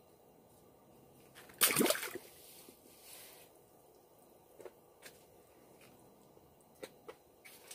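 Water splashing and sloshing in a hole in the ice, with one short, louder splash about a second and a half in and a fainter slosh after it, then a few light clicks.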